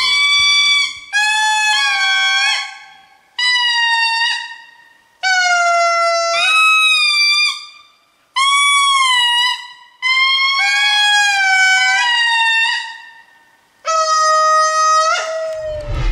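Indri singing: a series of about seven loud, long, trumpet-like calls, each rising at its start and then held, with short gaps between them.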